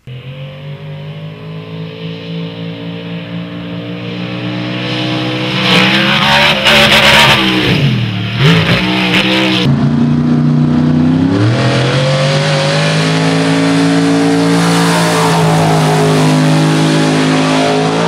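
BIGFOOT #18 monster truck's engine running hard on the run-up to a long jump, growing louder, its revs dropping and climbing back twice partway through, then held high. A loud rushing noise lies over the engine for a few seconds in the middle and stops abruptly.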